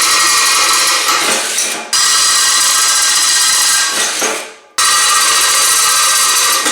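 Electric drill running under load, drilling small holes in the steel bumper. The motor whine stops and restarts twice, winding down about four seconds in before starting again.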